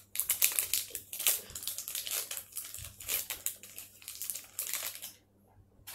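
Plastic packaging crinkling and rustling as a small packet is worked open by hand, stopping about five seconds in.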